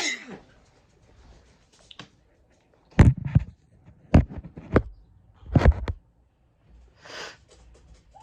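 A series of sudden loud thumps and noisy bursts, four or five in close succession, followed by a softer breathy burst near the end.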